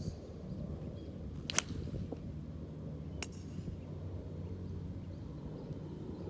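A Callaway Rogue ST Max iron striking a golf ball: one sharp crack about one and a half seconds in. A fainter click follows about three seconds in, over a steady low hum.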